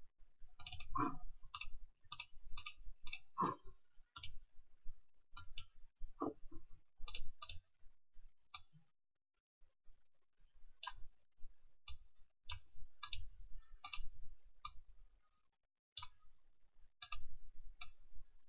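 Computer mouse buttons clicking: short, sharp, irregularly spaced clicks, often in quick pairs, with a pause of about two seconds midway.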